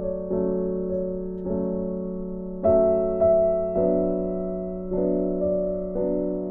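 Slow background piano music: soft keyboard chords struck about once a second, each fading away, over a held low note.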